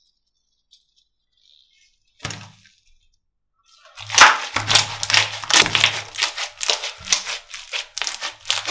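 Slime being squeezed and worked by hand: one short crunch about two seconds in, then from about four seconds a rapid, dense run of crackling and popping with soft low thumps.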